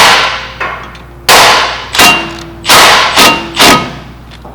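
About six sharp hammer blows on a hand impact driver with a Phillips bit, each with a short metallic ring. They are driving loose the Phillips screw that holds the brake rotor to the hub.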